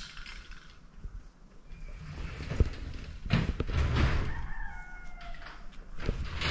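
Chickens calling, with a drawn-out falling call about four and a half seconds in, amid some knocks and rustling.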